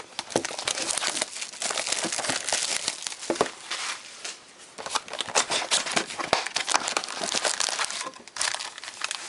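Plastic wrapping and foil card packs crinkling and tearing as a sealed box of football trading cards is opened. The crackling runs nearly throughout, with a short lull near the middle and another near the end.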